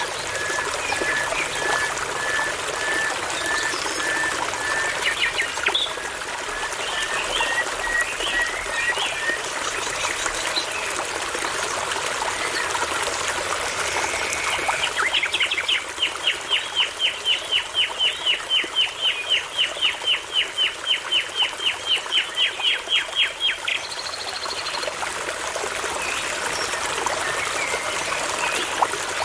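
Nightingale singing over a steadily trickling brook: a long series of short whistled notes that slowly climb in pitch, then after a pause a loud, fast run of repeated sweeping notes, about four a second, lasting some eight seconds.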